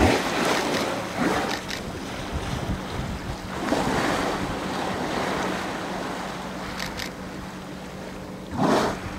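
Bigg's (transient) killer whales surfacing close by: a sudden loud blow as one exhales at the start, then more blows and splashes around four seconds in and again near the end. Under them are wind on the microphone, moving water and a steady low hum from the boat's engine.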